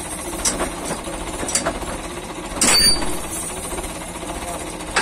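Belarus 510 tractor's diesel engine idling with a steady rattle, with a few sharp knocks over it, the loudest about two and a half seconds in.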